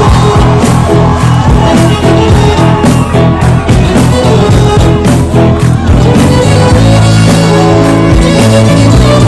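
Background music: loud, with a steady beat and bass, and sustained melodic notes; the beat eases off about six seconds in.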